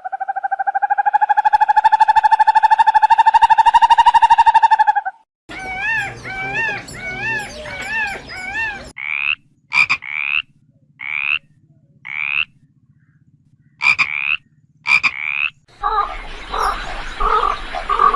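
A sequence of different animal calls cut one after another: first a long pulsed trill lasting about five seconds, then a warbling call, then a run of short high chirps, then a noisier stretch near the end.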